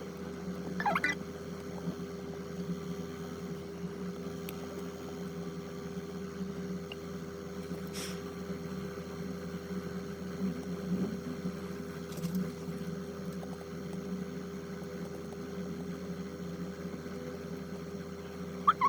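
A steady mechanical hum with a constant tone, with a short chirp about a second in and another at the end.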